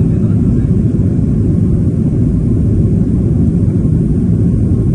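Steady low rumble of a jet airliner's engines and rushing air, heard from inside the passenger cabin while airborne shortly after takeoff.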